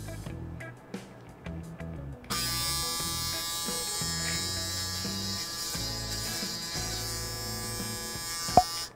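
Braun Series 9 (9280cc) electric shaver switched on about two seconds in, running with a steady high buzz, then cut off abruptly near the end, with a sharp click just before it stops.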